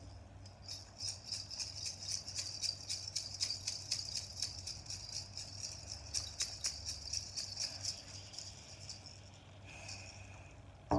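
Shamanic bells shaken in a fast, irregular jingle that fades out about nine seconds in. At the very end the large hide frame drum is struck once, a deep ringing beat.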